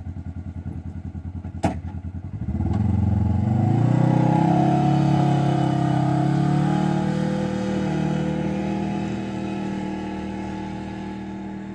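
Polaris RZR side-by-side's engine idling with a steady pulse, one sharp clack about two seconds in as the door shuts, then revving up as the machine pulls away and fading slowly as it drives off.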